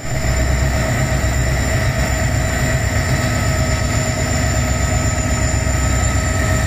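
EMD WDG4 diesel-electric freight locomotive passing close, its two-stroke V16 engine working under load: a loud, steady deep rumble with a steady high whine on top.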